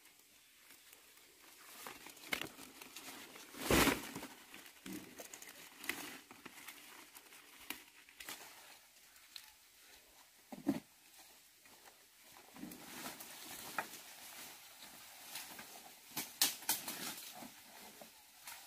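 Irregular rustling, crinkling and snapping, like leafy plants being handled and torn, with scattered clicks, a loud thump about four seconds in and a sharper knock near eleven seconds.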